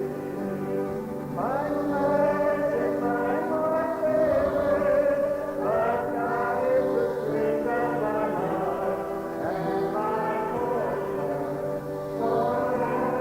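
Music with a choir singing long, held notes in phrases a few seconds long.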